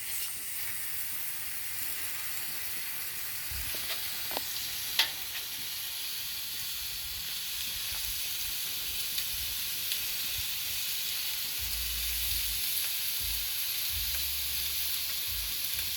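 Chicken pieces frying on a hot Blackstone flat-top griddle: a steady sizzle that grows slightly louder, with one sharp click about five seconds in.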